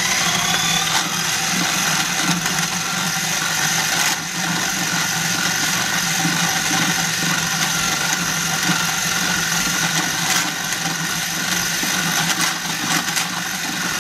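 KitchenAid KFP1333 13-cup food processor motor running steadily as the dough blade kneads a ball of bread dough around the bowl.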